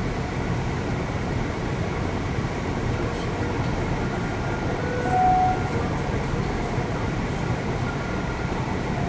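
Steady rumble of a car driving at highway speed, heard inside the cabin, with a short faint tone about five seconds in.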